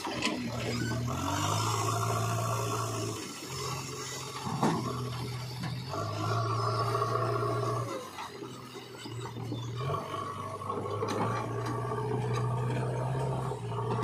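JCB 3DX backhoe loader's diesel engine running under hydraulic load as the front loader bucket is raised and lowered. The engine note holds steady for a second or two at a time and shifts pitch several times, with a few short clunks.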